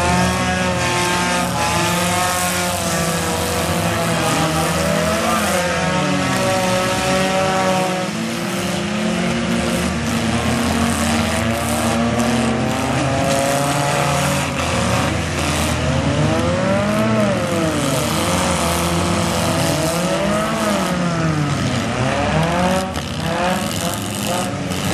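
Several four-cylinder demolition derby cars' engines revving hard, their pitches rising and falling over one another. A few sharp knocks from cars hitting each other break through, twice close together near the end.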